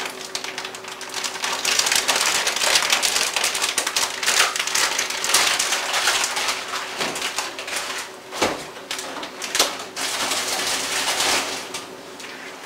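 Plastic bag of frozen chicken strips crinkling and rustling as it is handled and put back in the freezer, with a few sharp knocks in the second half.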